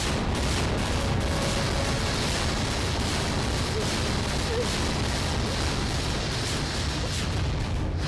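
A loud, steady rumbling sound effect with a crackling edge, from the drama's soundtrack.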